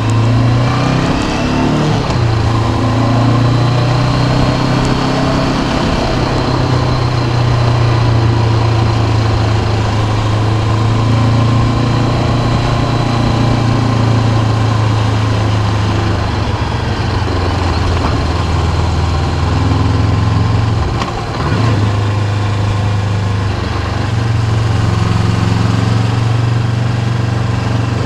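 2019 Honda CB500X's parallel-twin engine running under way, its note rising and falling slowly with engine speed, with a brief drop in level about 21 seconds in.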